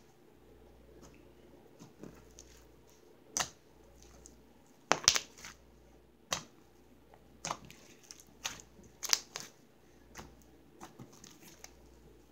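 Hands kneading and squishing butter slime, blue slime being worked together with soft white clay, giving a run of irregular sticky pops and clicks, loudest about halfway through.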